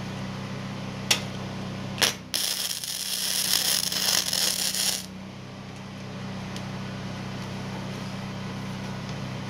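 Gasless flux-core MIG welder laying a tack weld on a fillet joint in thin sheet steel. The arc strikes briefly about two seconds in, then crackles steadily for nearly three seconds and cuts off. A sharp click comes about a second in, and a steady low hum runs underneath.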